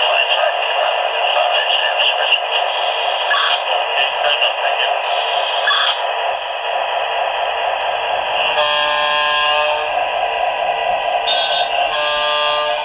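MTH O-scale F-unit diesel model locomotive's onboard sound system playing diesel engine running sounds through its small speaker, thin and with almost no low rumble. Two horn blasts come over it: one a little over a second long about two-thirds of the way in, and a shorter one near the end.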